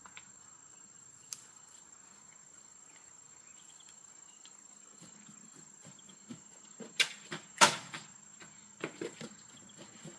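Faint crickets chirping under a steady high tone. Past the middle come a few sharp knocks and footfalls, one close pair, then several smaller ones.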